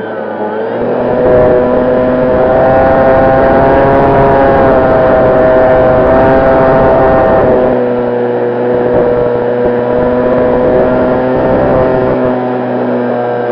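The 4258 650 KV brushless electric motor and propeller of an FMS P-51D Mustang RC plane, heard from an on-board camera: a loud, steady whine with a rush of air. The throttle comes up about a second in and the pitch rises, then it eases back a little about eight seconds in.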